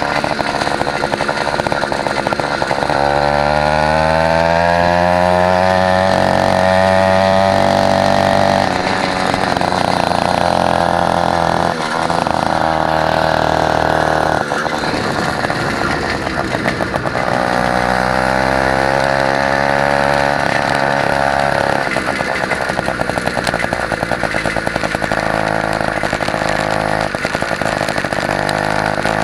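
A small two-stroke engine on a motorized Huffy bicycle running under way. Its pitch climbs several times as the throttle is opened and the bike gathers speed, with short dips when the throttle is eased.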